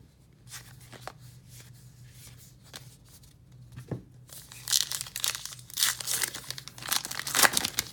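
A baseball card pack's wrapper being torn open and crinkled by hand: a few faint clicks, then a run of loud crackly rustling over the last few seconds.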